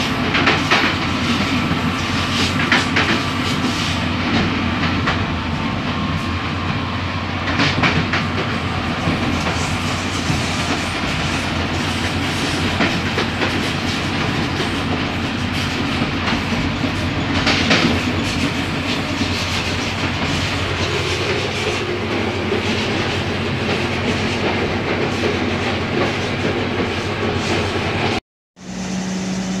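Running noise of a UIC-Z1 passenger coach travelling at speed, heard from inside: a steady rumble of wheels on the track with a few sharp wheel knocks over rail joints. It cuts off suddenly near the end.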